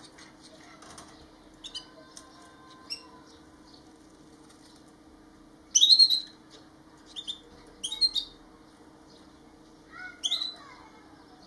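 Caged Gouldian finches giving short, sharp chirping calls in small clusters, the loudest about halfway through and again near the end, over a faint steady low hum.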